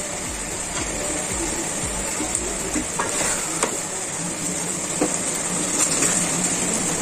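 Thick mushroom curry sizzling in an aluminium pot while a wooden spatula stirs it, with a few knocks and scrapes of the spatula against the pot.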